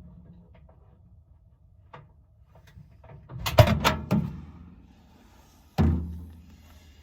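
A cluster of sharp knocks and bangs, then a single heavy bang about two seconds later whose low boom dies away over about a second.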